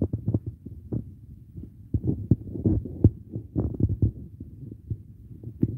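Low rumbling microphone noise with irregular dull thumps, several a second, as on a phone filming outdoors.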